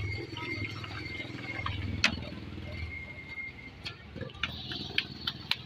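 Washing machine running, its motor humming low in stretches that swell and fade, with scattered sharp clicks, one loud click about two seconds in.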